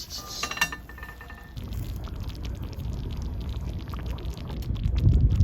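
Liquid being poured steadily, growing louder toward the end, after a couple of light metal clinks in the first second.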